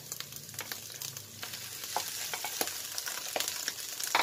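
Chopped hotdog, ham and mixed vegetables sizzling steadily in a little olive oil in a non-stick pan as leftover cooked rice is tipped in, with scattered small ticks and a few louder spatula taps near the end.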